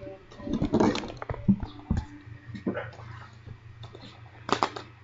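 Scattered light clicks, taps and rustling from hands handling plastic surprise toy eggs, with a quick cluster of clicks near the end.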